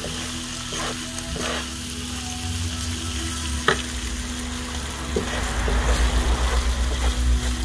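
Rice, mushrooms and onions sizzling in a frying pan as they are stirred with a wooden spatula, which scrapes and taps against the pan, with one sharp tap a little under four seconds in. The stirring gets brisker and louder over the last few seconds.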